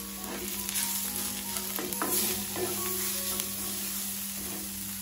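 Sliced onions, curry leaves and masala powders sizzling in hot wood-pressed sesame oil, stirred and scraped around the pan with a wooden spatula: a steady frying hiss with scattered scrapes and taps.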